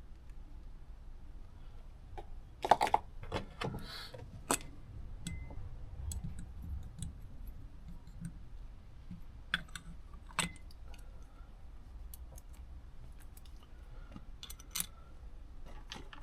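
Small metal carburettor parts and hand tools clicking and clinking as the PH61A carburettor is reassembled: scattered sharp clicks, the loudest cluster about three seconds in, with a few more spaced out later.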